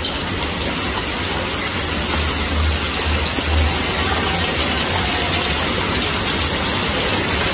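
Heavy rain pouring down steadily: an even hiss of downpour splashing on the pavement and on the canopies.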